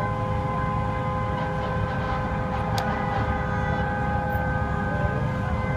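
Vehicle horn sounding in one long, unbroken blast, a steady chord of tones, over a low rumble.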